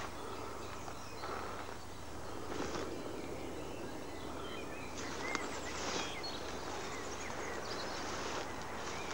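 Small birds chirping and calling in short, scattered notes over a steady low hum, with bursts of rustling as tall weeds brush past the camera.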